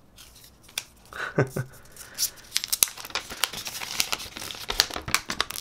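Clear plastic protective film being peeled off a new smartphone's screen: quiet handling at first, then a dense run of small, sharp crinkling crackles from about two seconds in.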